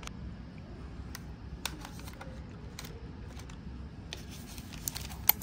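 Plastic snack packets crinkling as they are handled, with scattered sharp crackles that grow more frequent near the end, over a steady low room hum.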